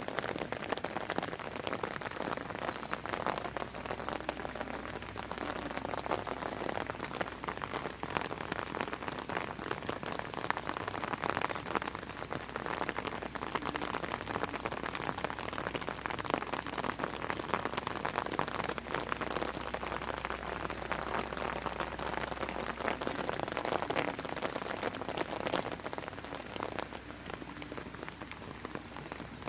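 Steady rain falling on a garden, a dense patter of many individual drops hitting leaves and surfaces.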